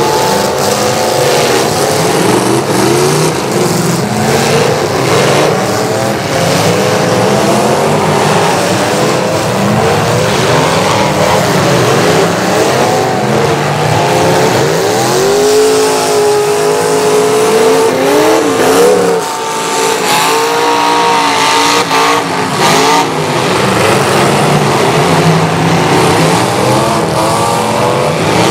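Demolition derby cars' engines revving hard together, several notes rising and falling at once, with occasional knocks of metal on metal and some tyre squeal.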